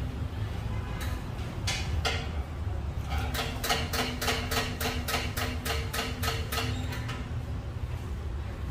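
A quick run of sharp metal knocks, about four to five a second for three or four seconds, like a street food vendor's cooking utensil striking a pan or plate, over a steady low rumble of street noise.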